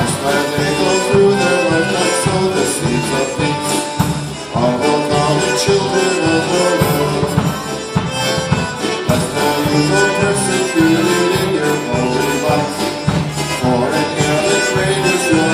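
Live polka band playing an instrumental passage of a worship song, with accordion over a steady beat.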